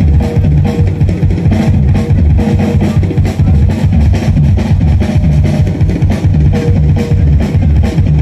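Band music with a drum kit keeping a steady beat over bass and guitar.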